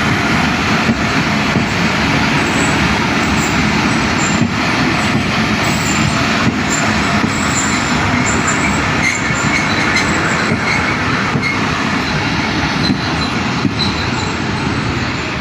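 Awam Express passenger train running on the rails: a steady, loud rumble of wheels and carriages, with faint knocks here and there and short high wheel squeals in the second half.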